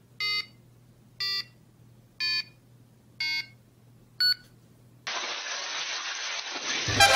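Electronic countdown beeps, one a second and five in all, each a little lower than the one before, with the last one shorter and higher. About five seconds in, a steady hiss begins.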